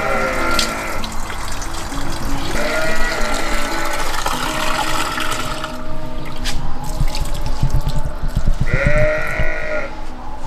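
Sheep bleating several times, each call about a second long and wavering, over background music.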